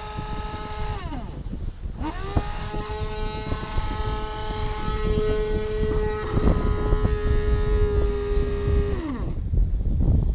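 Brushless electric motor (Leopard 4092, 1300kv) of a radio-controlled boat running out of the water with a steady high whine: it winds down about a second in, spins back up about two seconds in, holds steady, and winds down near the end. Wind and waves make a low rumble underneath.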